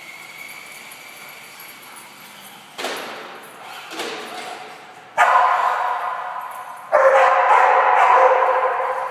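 Dogs barking and echoing off concrete: two short barks about three and four seconds in, then two longer, louder barking bouts that ring on and fade.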